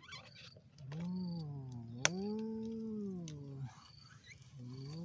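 An animal calling in long drawn-out calls that rise and then fall in pitch, three in a row. A single sharp click comes about two seconds in.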